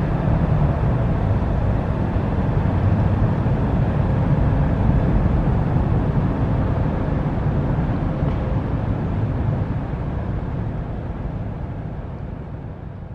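Steady low rumble of a large passenger ferry coming into port, fading out near the end.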